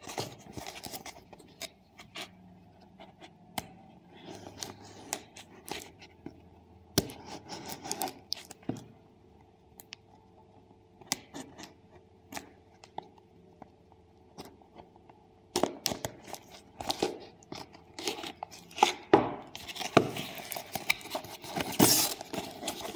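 Cardboard parcel being cut open with a pocket knife: the blade slitting the packing tape and plastic wrap, with tearing, scraping and crinkling of the wrap and the box. The noises come in scattered bursts, sparse for a while in the middle and busier in the last several seconds.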